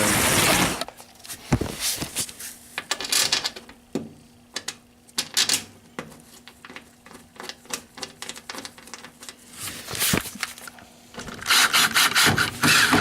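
Phillips screwdriver driving the front-panel screws of a front-loader washer, with scraping and rubbing and scattered clicks of metal on metal. Loud scraping for the first second and again near the end.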